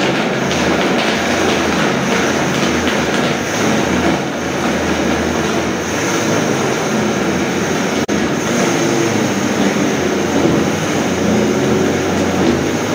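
Silver Crest SC-1589 multifunction blender running at speed, its blades grinding tiger nuts in water with a loud, steady motor and churning noise. The sound breaks off for a split second about eight seconds in.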